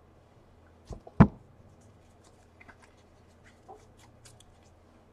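Trading cards and their packaging being handled on a tabletop: a small knock and then a sharper knock about a second in, followed by faint scattered clicks and rustles.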